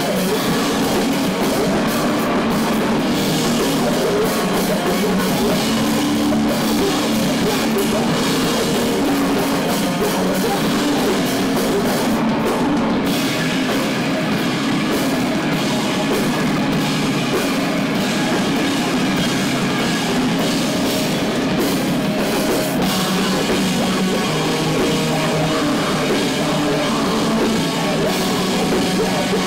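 A heavy rock band playing live: electric guitar, bass guitar and a drum kit with hard-hit cymbals, loud and continuous.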